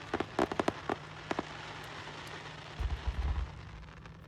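Fireworks crackling with a quick run of sharp pops, then a deep boom about three seconds in, over a steady hiss.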